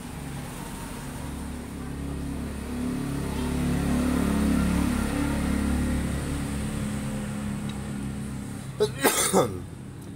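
A motor vehicle engine running nearby, its hum swelling over a few seconds and then fading. A few sharp, loud bursts about nine seconds in are the loudest sound.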